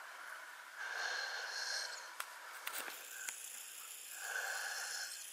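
Two soft, breathy breaths close to the microphone, one about a second in and one near the end, with a few faint clicks of the camera being handled in between.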